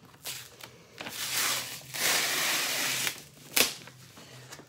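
Packing tape being torn and pulled at on a cardboard box: a short rip about a second in, a longer, louder rip from about two to three seconds, then a single sharp snap a little later.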